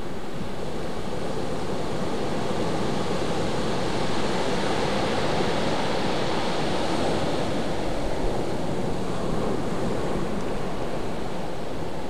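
Ocean surf: a steady wash of waves on the shore that swells a little in the middle.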